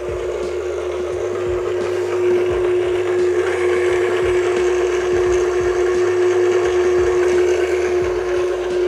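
KitchenAid stand mixer running with its wire whisk attachment, whipping the egg-yolk base of a mayonnaise-style Caesar dressing in a stainless steel bowl: a steady motor hum with the whir of the whisk. It grows louder about two seconds in.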